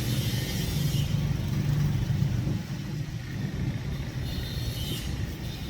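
Street traffic: a motor vehicle's engine rumbling close by, easing off about halfway through.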